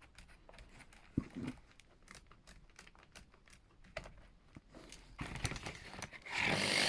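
Faint clicks and handling of the tool, then about six seconds in a Black & Decker electric drill starts up and runs with a steady whine, set to a low speed on its speed dial.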